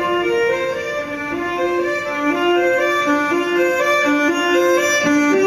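Solo violin through a concert PA, playing a melody of held notes that step from one to the next, with no drums.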